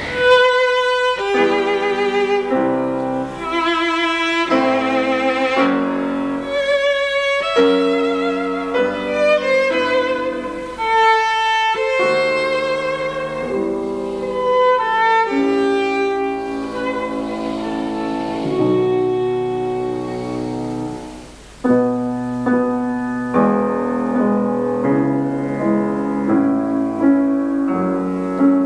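Classical music: a violin plays a slow melody with vibrato over piano accompaniment. About 21 seconds in, the music dips briefly and goes on with repeated chords.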